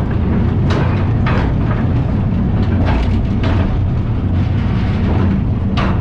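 Mine trolley train running on its rails: a loud steady low rumble with irregular sharp clacks from the wheels every second or so.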